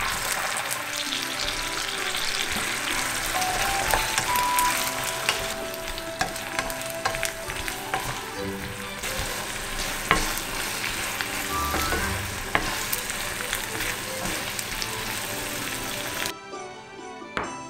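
Rice cakes and fish cakes sizzling as they are stir-fried in a bubbling soy–oyster sauce glaze in a nonstick pan, stirred with a wooden spatula that gives a few sharp knocks. The sizzle stops abruptly near the end.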